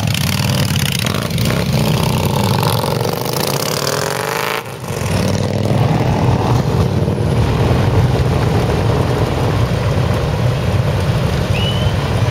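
Harley-Davidson V-twin motorcycles pulling away one after another, engines revving up and down as they pass, then the steady low rumble of a line of bikes running in wait.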